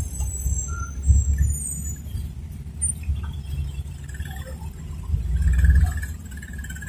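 Low rumble of traffic and the minibus's engine heard from inside the cabin while it waits and creeps at a busy junction. A few brief high squeals sound in the first second or two, and the rumble swells for a moment around five to six seconds in.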